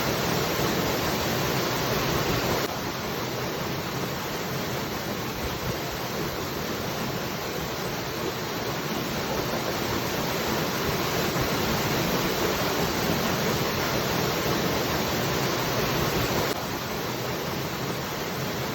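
Waterfall rushing, a steady dense roar of falling water. The level drops abruptly about three seconds in and again near the end.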